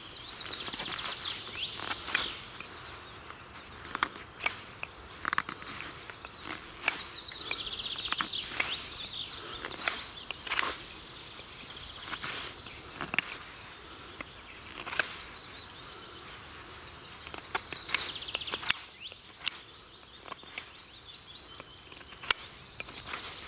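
The steel blade of a Turist knife from the Uldanov workshop scraping and shaving a wooden spatula blank. It comes in several high, rasping passes of a second or two each, a screech likened to scraping on glass, with sharp clicks of single cuts in between. The carver hears the screech as a hint that the edge might chip.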